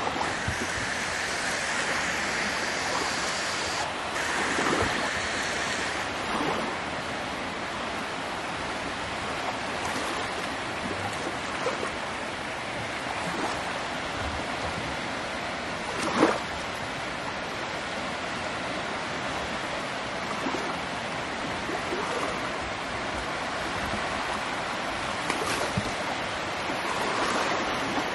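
Steady rush of ocean surf, with a single short knock about sixteen seconds in.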